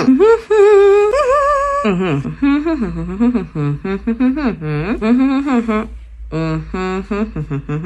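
A woman humming and making wordless vocal sounds in place of speech: a held note that steps up in pitch, then a run of short sliding hums that rise and fall, like talking without words.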